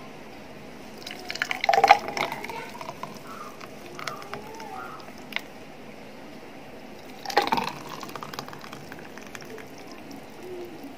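Thick blended papaya juice pouring from a steel mixer jar into tall glasses, filling them. It comes in two louder pours, about a second or two in and again about seven seconds in.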